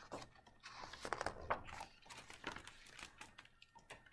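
Faint, irregular rustling and crinkling of a picture book being handled, opened and its pages turned.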